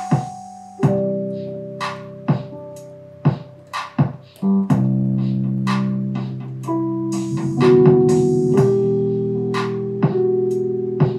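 Digital stage piano played with held chords, each struck chord ringing on and slowly fading under a higher line of notes.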